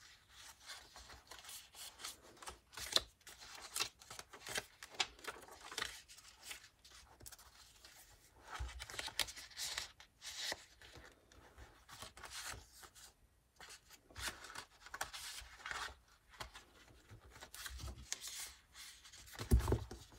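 Pages of a handmade paper-and-card junk journal being turned and handled, rustling and brushing in short, irregular strokes, with a louder soft knock near the end.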